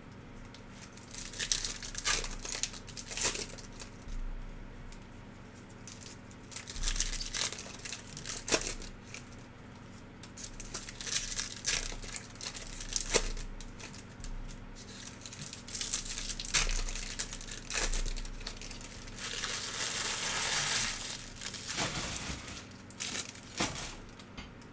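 Foil trading-card pack wrappers being torn open and crinkled by hand, in irregular short bursts with one longer stretch of crinkling near the end.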